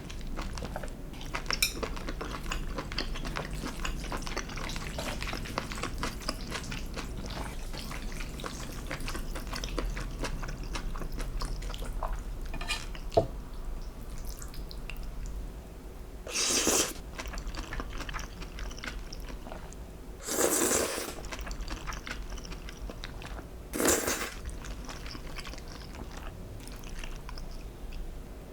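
Close-miked eating sounds: utensils clicking and scraping against dishes, with chewing. In the second half come three short, louder rushing sounds a few seconds apart.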